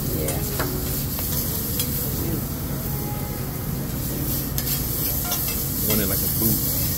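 Cubed steak and vegetables sizzling on a hibachi steel griddle, with a few clicks of the chef's metal spatula against the steel.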